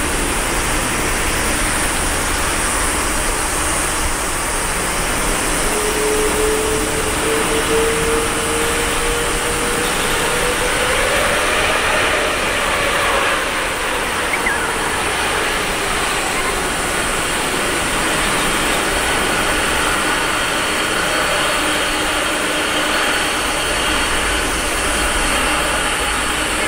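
Boeing 777-200ER's Rolls-Royce Trent 800 jet engines running at taxi power, a steady jet rush. A whine rises slowly in pitch for several seconds in the middle, then fades.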